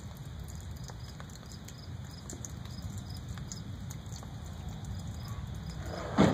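Thunderstorm ambience: a steady low rumble, then a sudden loud crash near the end.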